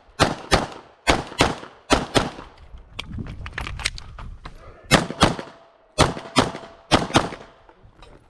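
Glock 17 9mm pistol fired rapidly in quick pairs, about a dozen shots in all, with a break of about two seconds in the middle before the pairs resume.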